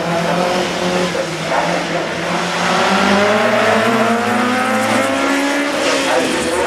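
The four-cylinder engine of a small hatchback slalom race car revving hard as it drives past. Its pitch climbs steadily for about two seconds around the middle as it accelerates, then drops away near the end.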